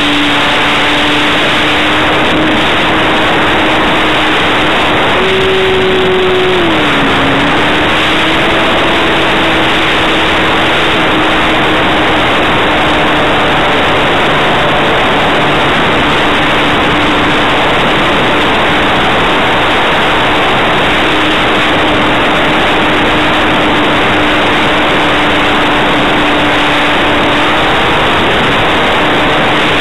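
The brushless electric motor and propeller of a Minimag model plane running in flight, heard through the onboard camera's microphone as a loud, steady hiss of wind and propeller wash with a hum under it. The hum's pitch jumps up about five seconds in, drops briefly below its usual level a couple of seconds later, then settles back and holds steady.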